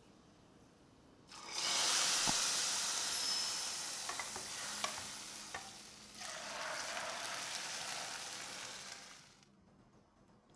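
Hot garlic and ground coriander fried in oil and ghee (the molokhia 'tasha') sizzling as it is poured into the pot of molokhia, in two long bursts, the second starting about six seconds in. A spoon clinks against the bowl a few times as it scrapes out the rest.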